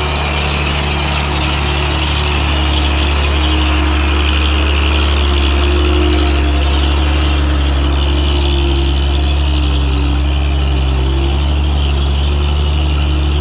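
A vehicle engine running steadily at a constant pitch, with a mechanical rattle over it, getting a little louder about two seconds in.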